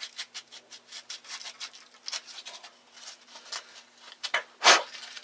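Hand-working noises on an aluminium antenna trap tube: rubbing and scattered light clicks as the metal parts are handled, with one louder short scrape about four and a half seconds in. A faint steady hum runs underneath.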